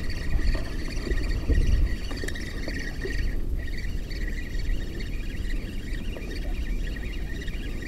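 Pond-side outdoor ambience picked up by an action camera: a low wind rumble on the microphone, under a steady high-pitched animal chorus that breaks off briefly about three and a half seconds in.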